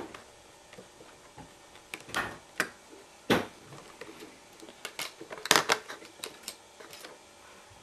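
Irregular metallic clicks and clinks of steel handcuffs being handled and worked with a paperclip pick, with louder knocks about three seconds and five and a half seconds in.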